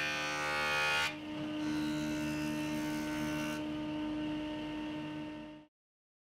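Jointer running with a steady motor hum as its cutterhead planes a hardwood board fed across it. The heavy cutting stops about a second in, and a lighter stretch of cutting follows. The sound then fades and cuts out abruptly about a second before the end.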